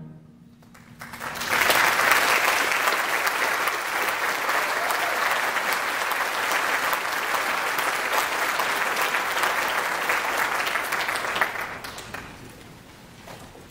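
Audience applauding at the end of a concert band piece: after a brief lull as the final chord dies away, the clapping starts about a second and a half in, holds steady for about ten seconds, then fades out near the end.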